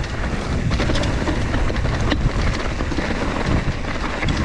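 A mountain bike rolling fast down a rough dirt and gravel trail: wind rumbling on the GoPro's microphone over the crunch of the tyres, with frequent small rattles and clicks as the bike bounces over rocks.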